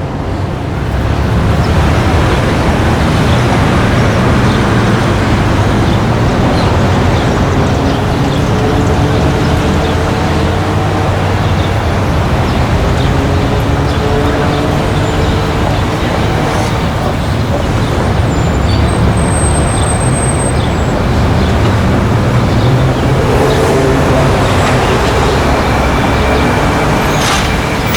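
Street traffic: a steady din of passing cars and buses, engine notes rising and falling as vehicles go by, with a brief high squeal about two-thirds of the way through.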